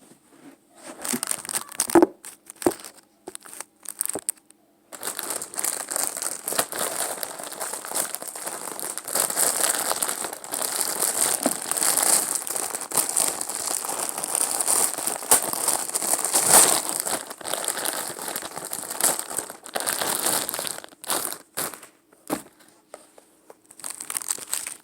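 Packaging crinkling and crackling as it is opened by hand: a few sharp rustles at first, then about fifteen seconds of continuous crinkling that thins out near the end.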